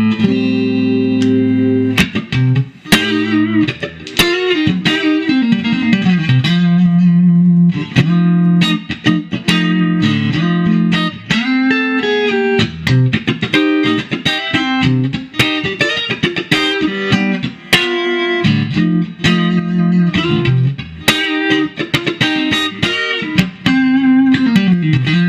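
1957 Super Relic Fender Stratocaster electric guitar being played: a run of picked single notes and chords, with bent notes here and there.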